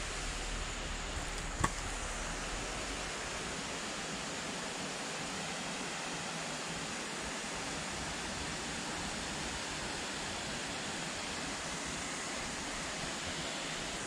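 Steady rushing outdoor noise with no distinct source, and a single sharp click about a second and a half in.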